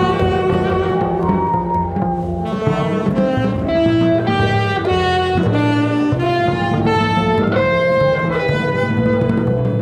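Small-group jazz recording: a saxophone plays a melody of held notes that step up and down in pitch, over upright bass and guitar.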